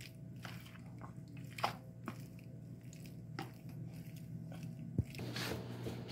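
Spoon stirring and mashing cheese into hot macaroni in a pot: soft squishing with scattered clicks of the spoon against the pot, and one sharper knock about five seconds in. A faint low hum runs underneath.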